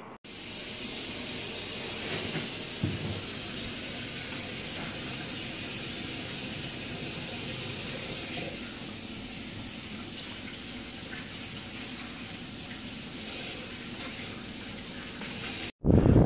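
Steady hiss from an oven with chicken baking inside, and one brief knock about three seconds in.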